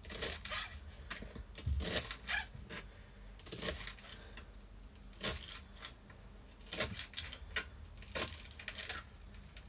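Kitchen knife chopping fresh parsley on a plastic chopping board: short knocks of the blade on the board in irregular runs with pauses between them.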